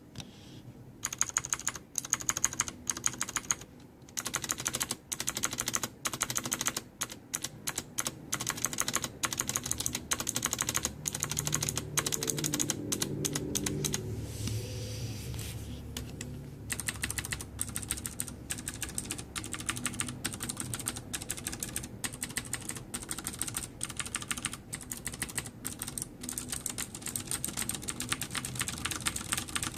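Ducky Zero mechanical keyboard with Cherry MX Blue switches being typed on, a fast run of sharp key clicks with a brief lull about halfway through.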